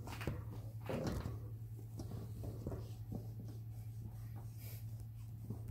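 Faint scattered rustles and light clicks over a steady low hum.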